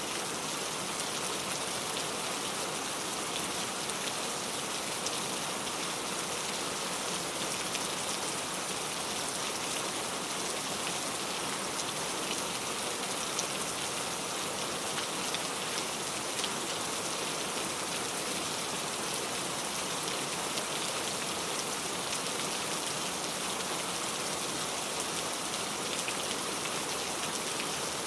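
Steady rain falling, a dense even hiss of raindrops with faint individual drop ticks here and there.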